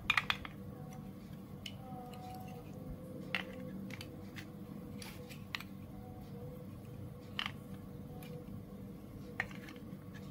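Large plastic building bricks clicking and knocking as they are handled and pressed onto a stack on a baseplate: a quick cluster of clicks right at the start, then single clicks every second or two. A steady faint hum runs underneath.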